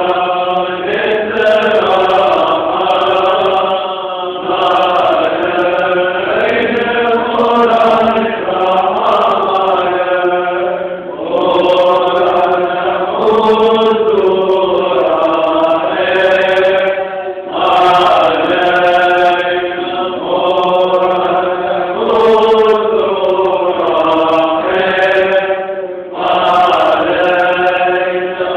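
Syriac Orthodox Lenten prayer chanted by voices together in long melodic phrases, with brief pauses between phrases about 11, 17 and 26 seconds in.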